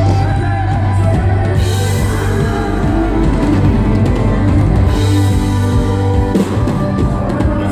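Live country band playing amplified music with electric guitar, acoustic guitar, fiddle and drum kit, with heavy bass.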